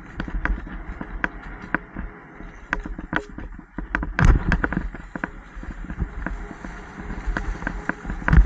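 Bicycle rattling and clicking irregularly as it rides over a rough grass-and-dirt trail, over a steady low rumble, with a heavier knock about four seconds in and another near the end.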